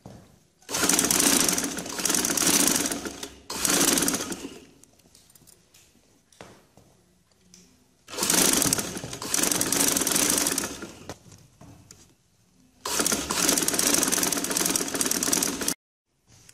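Sewing machine stitching in four runs of a few seconds each, with short pauses between, as piping is sewn along a kurti neckline; the last run cuts off suddenly near the end.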